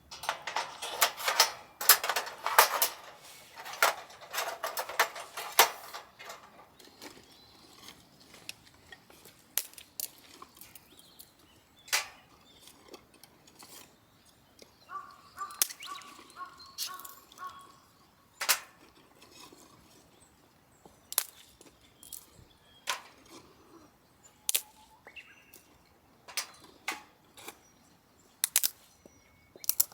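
A series of sharp clicks and knocks: a dense clatter for the first six seconds or so, then scattered single clicks. A short pitched sound, repeated in a few quick pulses, comes about halfway through.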